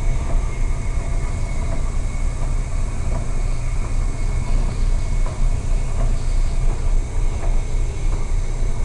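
Storm wind and heavy seas roaring over a ship's bow as it plunges through large waves, with a loud, steady rumble of wind buffeting the microphone.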